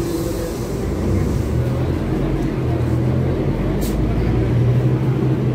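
Scania OC09 inline-six engine of a city bus running, heard from inside the passenger cabin; the drone grows louder about a second in. A short hiss comes about four seconds in.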